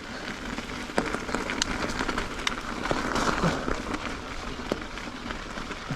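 Mountain bike tyres rolling on a gravel road: a steady crunching hiss with scattered sharp ticks of stones.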